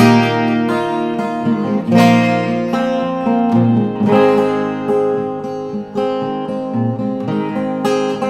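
Background music: strummed acoustic guitar, a new chord struck about every two seconds.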